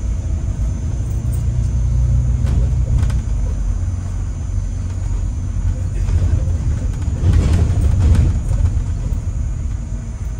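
Bus engine and road noise heard from inside a moving bus, a steady low rumble that swells briefly about seven to eight seconds in, with a few faint knocks.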